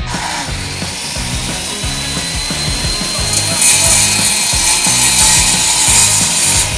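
Power saw cutting James Hardie fiber-cement siding board: a steady, hissing cut with a motor whine, getting louder about halfway through and stopping sharply at the end. Rock music plays underneath.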